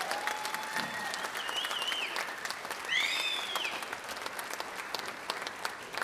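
Audience applauding, with a couple of high cheers rising and falling about two and three seconds in.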